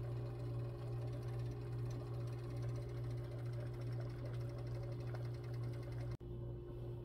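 Steady low hum of a small motor, unchanging, with a brief dropout about six seconds in.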